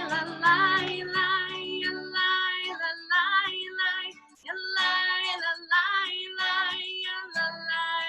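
A high voice singing a song in phrases, with guitar accompaniment underneath.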